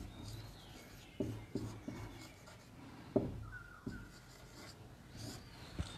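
Marker pen writing on a whiteboard: faint, irregular strokes and taps.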